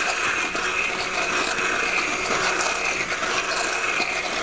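Handheld immersion blender running steadily, its blade churning corn chowder that is getting thick in a saucepan, with a steady high motor whine.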